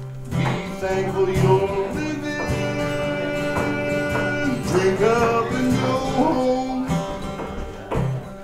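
Live acoustic band music, a country or bluegrass-style tune led by plucked guitar, with held notes and some sliding pitches over the picking.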